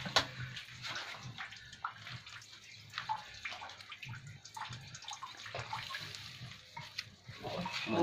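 Water sloshing and splashing in small irregular bursts as a bucket is worked through shallow water at the bottom of a newly dug well.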